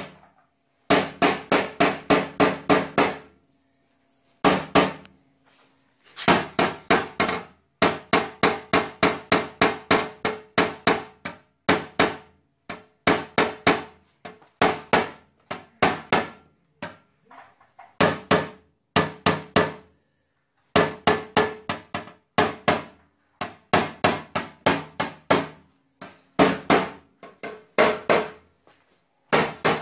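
Light hammer taps on a paintless-dent-repair knockdown tool, knocking down a high spot (a bump) on a Lada Granta's steel front wing. The taps come in quick runs of about five a second, with the panel ringing slightly, broken by short pauses.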